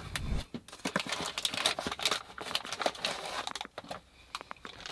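Clear plastic bag crinkling and cardboard box packaging rustling as a boxed electronic unit is lifted out: a dense run of irregular crackles that thins out near the end, with a dull bump right at the start.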